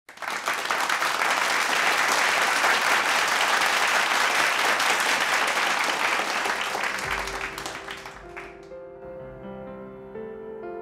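Studio audience applauding, dying away about eight seconds in as a piano intro with a low bass starts about seven seconds in.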